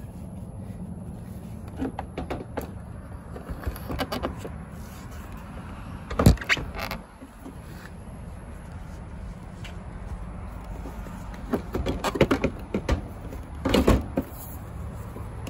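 Plastic trim and headlight-housing parts being worked back into place by hand: scattered clicks and knocks, the loudest about six seconds in and a cluster near the end, over a low steady rumble.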